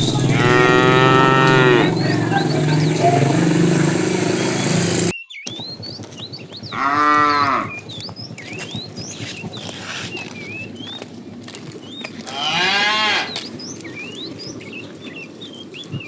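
Cattle mooing: three separate calls, each about a second or more long, spaced several seconds apart. A steady low engine hum runs under the first call and stops abruptly about five seconds in, after which small birds chirp in the background.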